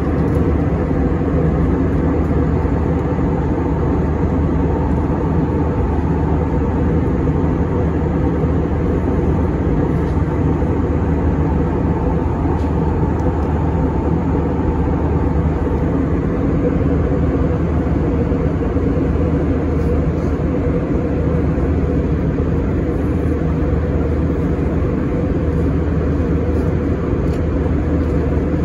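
Airbus A321 airliner cabin noise in cruise flight: a steady low drone of engines and rushing air, unchanging throughout.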